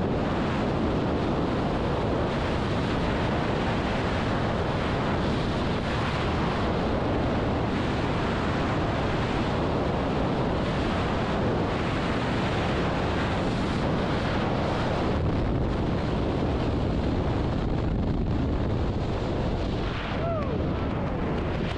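Strong wind rushing over the camera microphone during a skydiving freefall, a steady loud roar of air with no let-up, easing slightly near the end.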